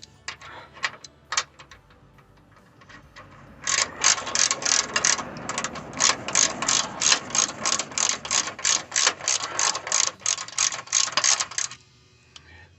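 Hand ratchet clicking as a nut is tightened: a few separate clicks near the start, then steady, rapid clicking, about five a second, from about four seconds in until shortly before the end.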